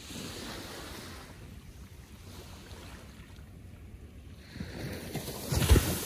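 Gentle ocean waves lapping on the shore: a wash of hiss at the start, then a wave builds and breaks near the end, the loudest moment, with a low rumble.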